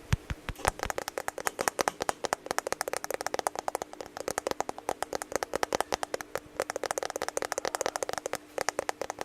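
Fast, dense ASMR tapping, many sharp taps a second, that stops abruptly at the end.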